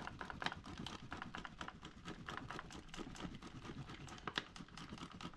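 Cheese grated on a handheld flat grater, a fast run of short rasping scrapes as the block is rubbed up and down the blade.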